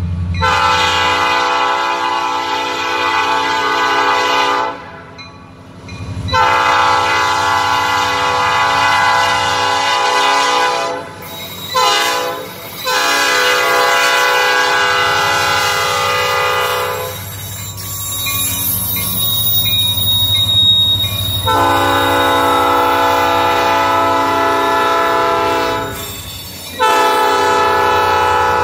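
EMD SD70 diesel locomotive's air horn sounding a multi-note chord in the grade-crossing pattern: long, long, short, long, then two more long blasts. The diesel engine's low rumble and the freight cars rolling over the rails run beneath it, with a faint high wheel squeal in the gap between blasts.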